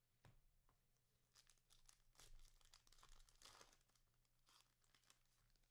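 Faint tearing and crinkling of a trading-card pack's wrapper being opened, with light rustles and clicks from cards being handled.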